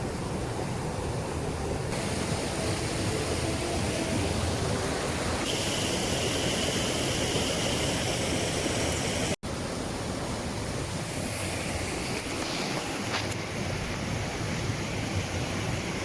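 Mountain river rushing steadily, with a sudden short break about nine seconds in.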